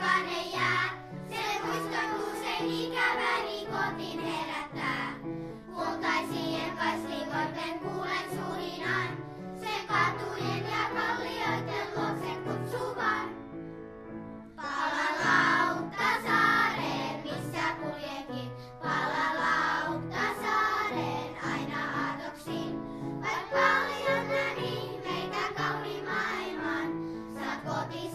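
Primary-school children's choir singing a song in Finnish, with a short break between phrases about halfway through.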